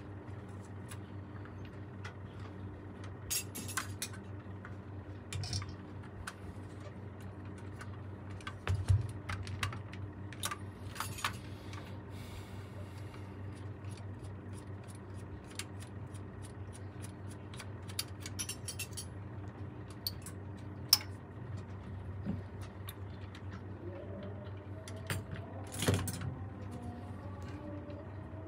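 Small metal saxophone parts and hand tools clicking and clinking at irregular intervals during repair work, some clinks ringing briefly, over a steady low hum.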